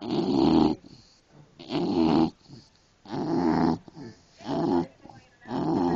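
English bulldog snoring in a steady rhythm: about five snores, one every second and a half or so, each lasting around half a second.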